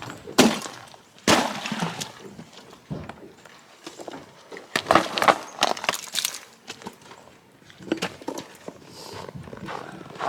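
Ice being knocked out of frozen water buckets: sharp knocks with cracking, clattering ice, coming in clusters about a second in and again around five to six seconds in.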